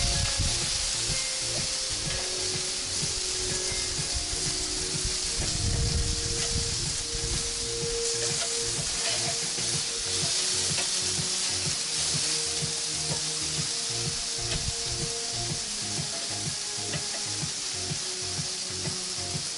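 Marinated pork steaks sizzling steadily on a hot gas grill's grate while being turned with metal tongs.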